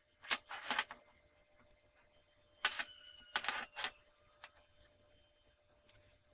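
About five sharp clicks and knocks of hard parts being handled at a workbench, spread over the first four seconds, then a few fainter ticks.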